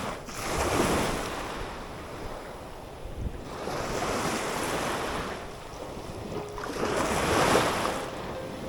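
Sea waves washing onto the shore, the surf swelling and fading three times a few seconds apart, with wind on the microphone.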